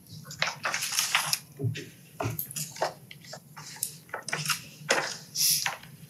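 Paper rustling and shuffling close to a microphone, in irregular crackles and soft knocks.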